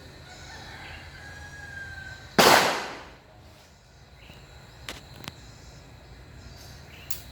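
A single gunshot about two and a half seconds in, with a short echoing tail that fades over about half a second, then a few faint clicks.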